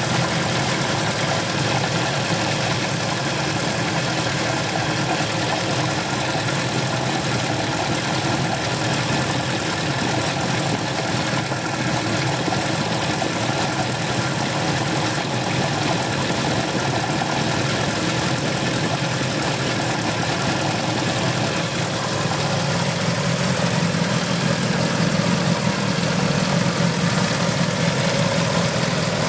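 Mitsubishi 4G63T turbocharged DOHC 16-valve four-cylinder, fitted with HKS 272 camshafts, idling steadily, heard close over the open oil-filler hole. It gets a little louder in the last few seconds.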